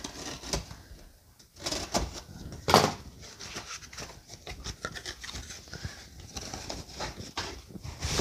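Cardboard box being opened and unpacked by hand: flaps and packing rustling and scraping, with scattered small clicks and a sharper crackle about three seconds in.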